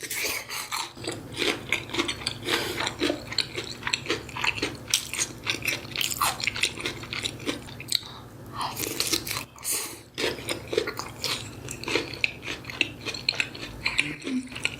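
Close-miked eating sounds: biting into and chewing sauced, breaded Korean pork cutlet (donkatsu), with many quick crunches and wet clicks.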